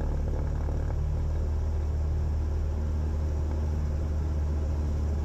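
Cessna 172's piston engine and propeller at full throttle on the takeoff roll, a steady low drone heard from inside the cabin.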